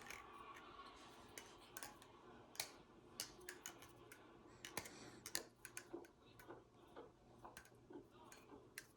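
Balisong (butterfly knife) being flipped: faint, irregular clicks and taps as the handles swing around and close on each other.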